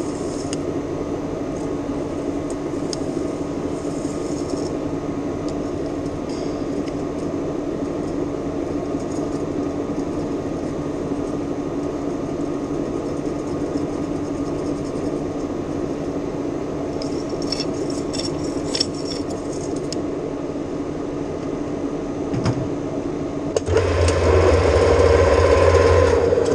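Metal lathe running steadily while turning stainless steel, with occasional light clinks. About 24 seconds in the sound steps up, louder and heavier.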